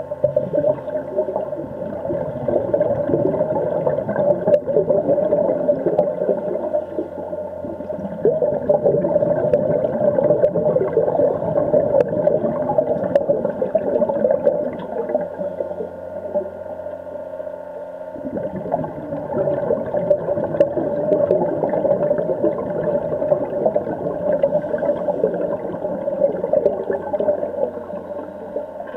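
Underwater sound of a swimming pool heard through a submerged camera: a steady hum under a churning, gurgling wash of water and a scuba diver's bubbles, which eases for a couple of seconds past the middle.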